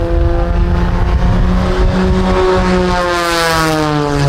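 Aerobatic propeller plane making a low, fast pass: a steady engine and propeller drone that grows brighter near the closest point, about three and a half seconds in, then falls in pitch as it moves away. Wind rumbles on the microphone underneath.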